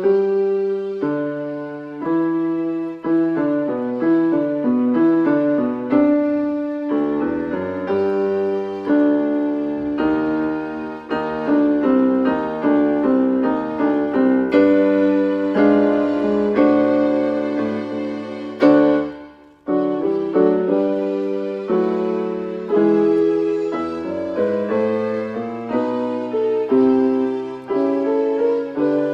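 Electronic keyboard played in a piano voice: a melody over chords, note after note, with a brief break about two-thirds of the way through before the playing resumes.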